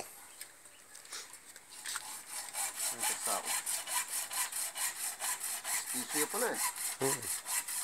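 Rhythmic rasping strokes, about four a second, starting about two seconds in and keeping an even pace.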